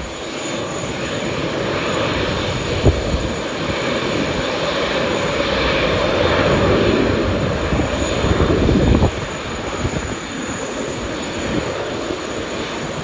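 Jet airliner engine noise that builds to its loudest about two-thirds of the way through, then drops off suddenly, with a short thump near the start.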